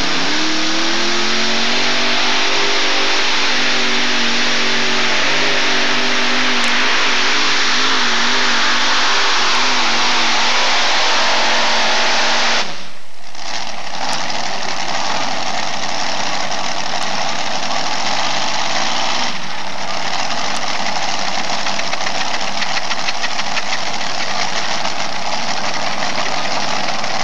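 Unlimited modified pulling tractor making a pull at full throttle: engine pitch rises over the first couple of seconds, then holds with some wavering under a dense loud roar. The sound cuts out briefly about 13 s in, then loud engine noise carries on.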